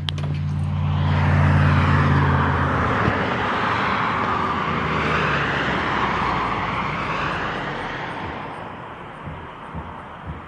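A passing motor vehicle: a low engine hum and a broad rushing noise swell in the first couple of seconds, then slowly fade away, the hum dropping out after about three seconds.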